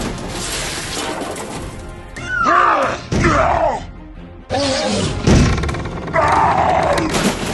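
Background music with cartoon sound effects over it, including gliding, groan-like voice sounds about two seconds in and again around five seconds.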